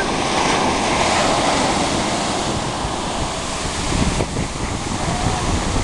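Ocean surf washing in at the shoreline, with wind buffeting the microphone.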